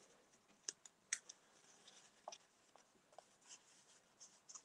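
Near silence, with a few faint, short clicks and rustles of card being handled and pressed down on a craft mat.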